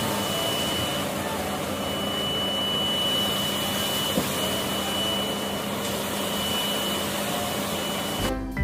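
Eight-wheel tipper truck's engine running steadily while its hydraulic hoist tips the raised dump bed to unload sand, with a thin high whine over the running noise.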